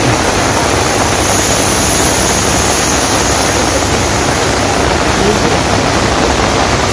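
Heavy rain: the steady, loud hiss of a downpour falling on umbrellas and a plastic tarp close overhead.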